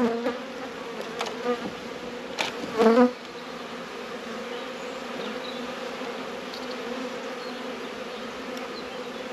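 Honeybees buzzing steadily over an open hive, with a louder wavering buzz about three seconds in as a bee flies close by. A few light clicks come in the first three seconds as a frame is prised up with a hive tool.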